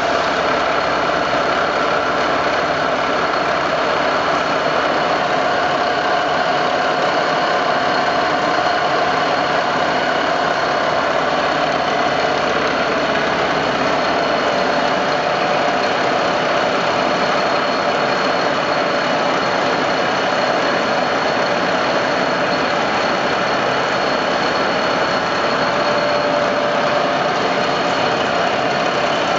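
Mecof CS8 bed milling machine running under power: a steady machine drone with a few steady whining tones held over it.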